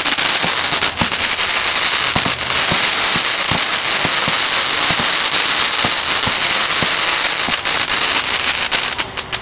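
Consumer fireworks cake firing a rising column of gold sparks: a loud, steady hiss with scattered pops and crackles, the hiss stopping near the end.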